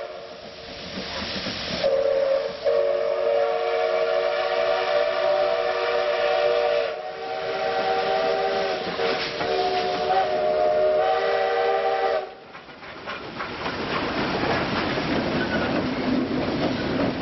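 Steam locomotive whistle sounding a chord of several notes: a short blast, then a long blast of about nine seconds with brief dips. It stops suddenly, and the rumble and wheel clatter of the train passing close by follow.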